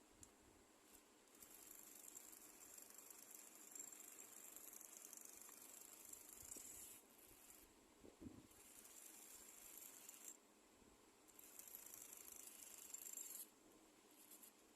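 Near silence, with faint high hissing that comes and goes in stretches of one to three seconds.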